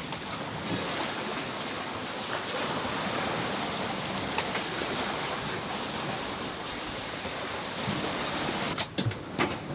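Steady rush of wind and sea water around a sailing yacht, with a few sharp knocks near the end.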